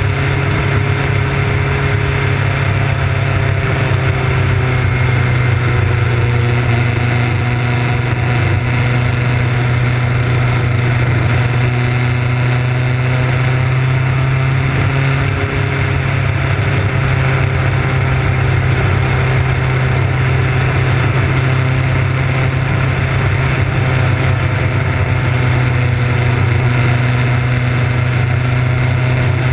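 Motorcycle engine running at a steady cruising speed, its pitch easing up and down a little through the bends, under a constant rush of wind and road noise.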